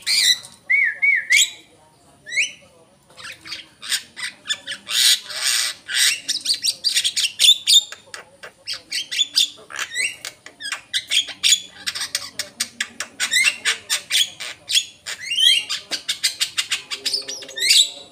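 Javan myna singing: a few short rising whistles at first, then from about three seconds in a long, fast run of clicks, harsh chattering notes and whistles.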